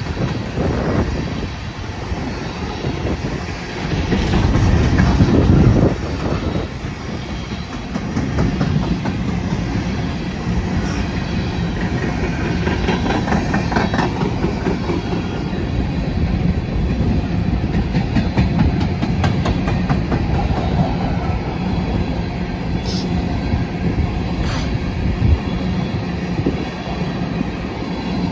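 Empty coal cars of a freight train rolling past, their steel wheels rumbling steadily on the rail with clickety-clack over the joints. It gets louder about four to six seconds in, and there are two short high squeals near the end.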